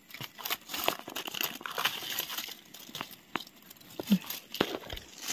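Dry leaf litter rustling and crackling as wild mushrooms are pulled up from the forest floor and handled, with many small irregular snaps and crinkles.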